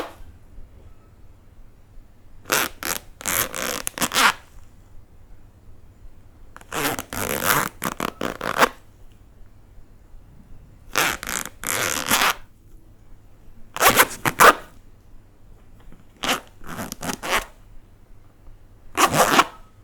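A zipper being opened and closed by hand: several quick zipping strokes in short groups, with pauses of a second or two between them.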